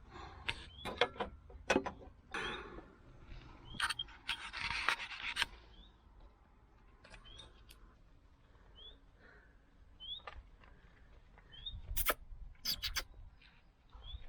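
A bird chirping, a short rising note every couple of seconds, among scattered light clicks and knocks.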